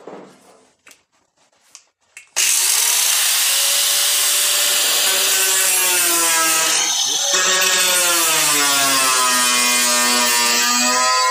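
Electric angle grinder starting up about two seconds in and cutting into the steel of a car's rear quarter panel. Its high whine sags and recovers as the wheel bites into the metal, with a few light handling knocks before it starts.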